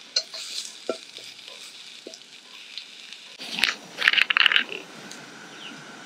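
Stir-fry cooking in a pan: faint sizzling with a few light clinks of the cooking utensil, then a louder clatter of the utensil scraping and knocking against the pan about three and a half seconds in.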